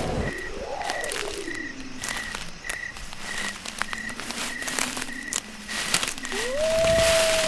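Forest ambience sound effects: a high chirp repeats about three times a second under scattered crackling clicks. About a second in, a short call rises and falls. Near the end a long call rises, holds and slowly falls away.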